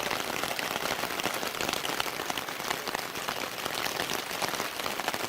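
Food frying in a pan, a steady sizzle thick with fine crackles and pops of hot fat.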